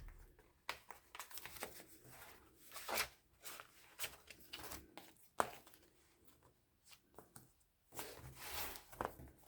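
Paper and card rustling with scattered soft taps and clicks as a handmade paper journal is handled and slid back into its cardstock folio.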